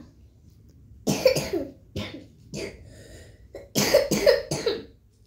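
A person coughing in two short bouts, about a second in and again around four seconds in.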